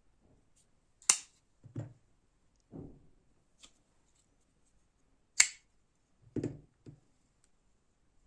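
Folding knife being handled: two sharp metallic clicks about four seconds apart, like the blade snapping open or shut, with softer dull knocks of the knife being moved and set down between them.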